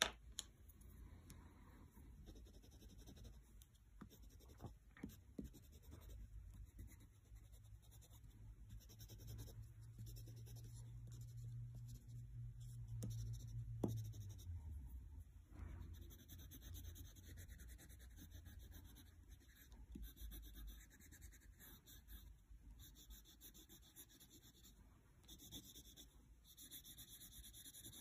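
Wax crayons rubbing across sketchbook paper in soft, faint scratching strokes, with a few light clicks and taps as crayons are picked up and put down. A faint low hum rises and fades in the middle.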